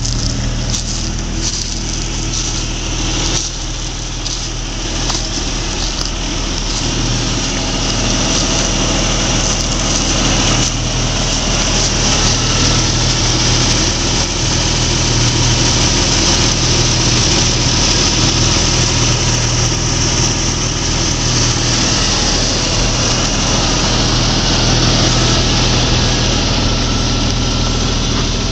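Jeep Cherokee XJ's engine idling steadily, with a constant high hiss over it.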